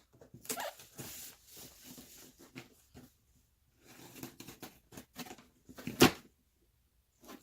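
Cardboard shipping box being opened by hand: tape tearing and packaging rustling in irregular scrapes, with one sharp, loud snap about six seconds in.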